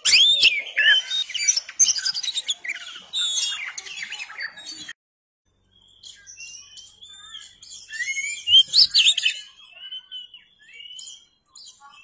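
Oriental magpie-robin (kacer) singing a rapid, varied song of chirps, trills and whistles. The song cuts off suddenly about five seconds in, falls silent for nearly a second, then resumes with rising whistles and its loudest flurry of notes near nine seconds.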